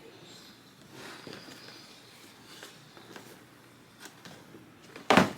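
A shoebox being handled and opened: faint rustling and a few light taps, then one loud, brief knock or rustle near the end.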